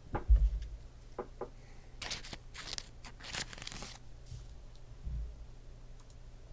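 Handling noise on a desk: a heavy thump at the start, two clicks, then about two seconds of crinkling rustle, and a dull thump near the end, over a steady low hum.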